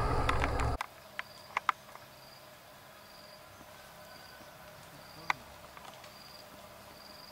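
A loud edited-in sound cuts off suddenly under a second in, leaving forest ambience: an insect chirping in short high notes about once a second, with a few sharp clicks.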